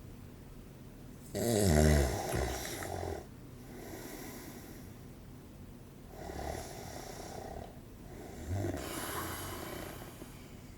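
A man snoring in his sleep. A loud snore with a falling pitch comes about a second in, followed by softer snoring breaths roughly every two to three seconds.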